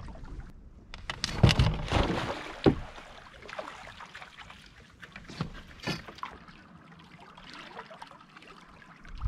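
Canoe paddle strokes in lake water: several loud, sharp splashes and knocks a second or two in, then a few lighter strokes and water lapping against the hull.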